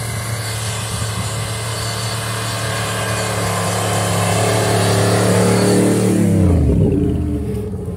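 Off-road 4x4's engine running as it drives up a snowy track, growing louder as it comes closer. It passes close by at about six seconds, and its note drops in pitch and fades as it goes past.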